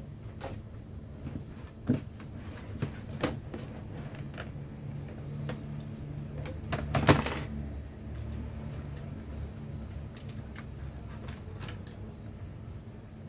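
Small hard objects clicking and clinking a few times, with a short rattling cluster about seven seconds in, over a steady low hum.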